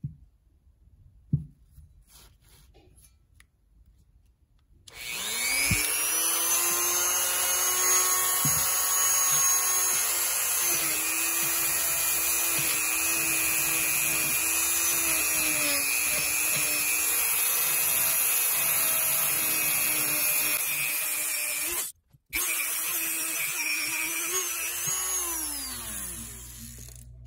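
Dremel rotary tool spinning up about five seconds in and running at a steady high-pitched whine while polishing the corroded aluminum body of a Quadrajet carburetor. It cuts out for an instant about two-thirds of the way through, runs again, then winds down with falling pitch near the end.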